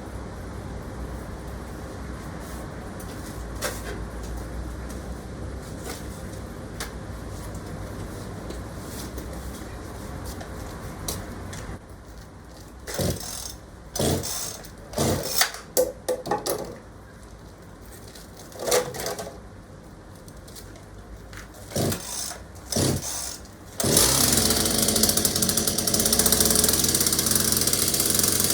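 Two-stroke Partner chainsaw being pull-started: several short pulls of the starter cord with brief sputters, then the engine catches about 24 seconds in and runs steadily.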